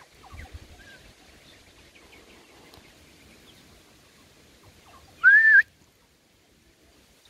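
One short, loud whistle about five seconds in, rising in pitch and then holding. A few faint bird chirps come before it.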